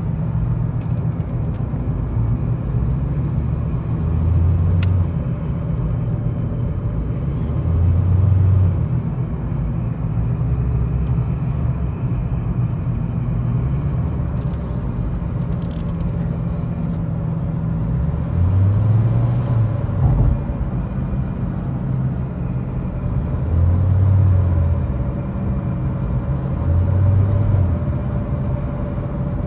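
A car's engine and road noise heard from inside the cabin while driving: a steady low rumble, with a deeper hum that swells for a second or so several times.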